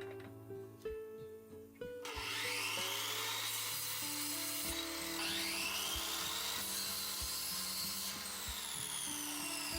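A power tool working wood starts about two seconds in and runs steadily, over background music.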